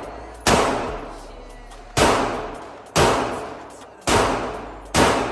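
Five gunshots fired at an indoor shooting range, about a second apart, each sharp crack followed by a decaying echo off the range walls.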